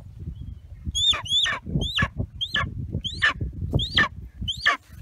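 Young golden eagle, about three months old, calling: a run of about eight high calls from about a second in, each a short rise then a steep falling slur, over low rustling close to the microphone.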